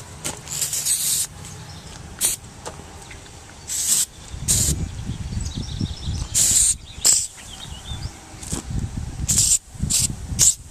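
Aerosol can of oven cleaner sprayed in about ten short hissing bursts onto old paint to strip it, over a low rumble.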